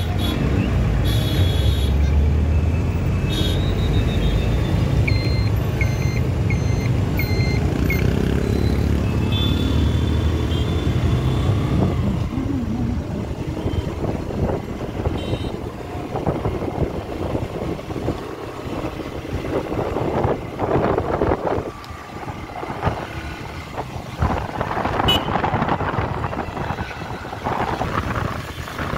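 Road traffic: a vehicle engine rumbles heavily, with a run of five short, evenly spaced beeps about five seconds in. After the first half the rumble gives way to rougher, uneven road and wind noise.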